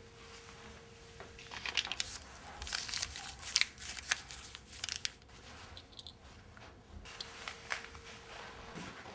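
Rummaging through a purse and handling paper money: a quick run of rustles, clicks and crinkles, busiest in the first half, with a few more near the end.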